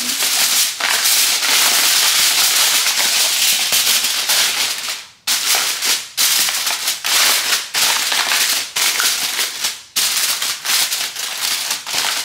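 Reynolds Wrap aluminum foil crinkling and crackling as hands press and crimp it down over the rim of a disposable aluminum baking pan. The crackle is dense and nearly continuous, with brief pauses about five and ten seconds in.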